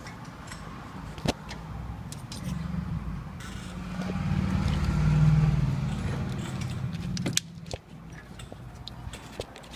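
A motor vehicle's low rumble swells over a few seconds and fades away again, like a vehicle passing, with scattered metallic clinks and clicks of tools and parts.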